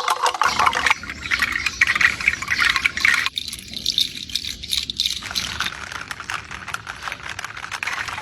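Strung dried fruit-shell chimes being shaken, the hard shells clattering and rustling against one another in a dense patter of small clicks. The sound changes abruptly about a second in, again after about three seconds and again after about five, as different shell rattles take over.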